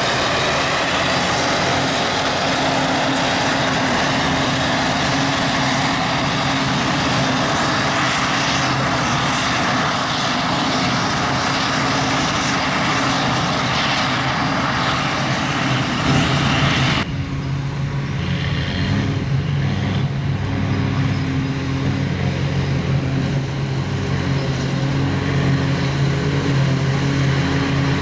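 Claas Jaguar self-propelled forage harvester chopping grass and blowing it through its spout into a trailer driven alongside by a tractor: a loud, steady engine drone under a wide rush of noise. About seventeen seconds in the sound changes abruptly to a duller, deeper engine drone.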